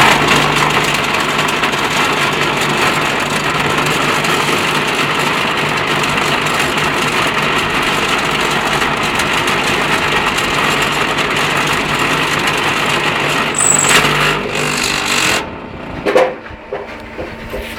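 Electric motor of a manual tile-making machine running under load, with a loud steady buzzing rattle that stops about fifteen seconds in. A few short knocks follow near the end.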